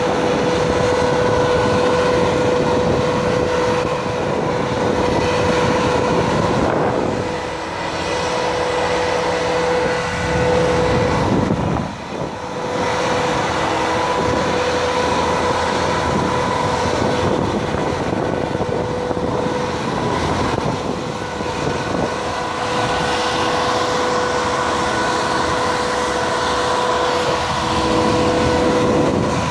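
Steady heavy machinery running, a loud rumble with a constant high whine that falters briefly about eleven seconds in.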